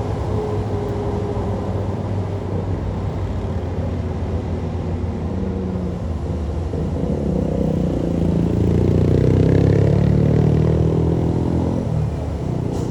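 A heavy vehicle's engine rumbling, rising in pitch and getting louder as it passes close about seven seconds in, loudest around ten seconds in, then fading. A steady traffic rumble lies underneath.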